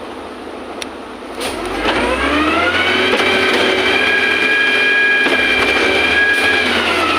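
Concrete pump truck's engine revving up, holding high, steady revs while it pumps concrete, then dropping back near the end.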